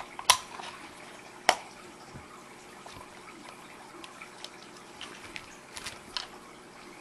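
Small plastic clicks and taps from the battery compartment of a toy aquarium's plastic base as AA batteries are fitted and the cover handled: two sharp clicks in the first second and a half, then faint ticks and a short run of clicks near six seconds.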